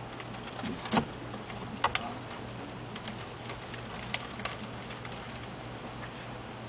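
A handful of sharp, short clicks and light knocks spread over several seconds, above a faint steady hum: a 10-pound weight on a cord being hung from the middle of a small concrete beam and handled against it.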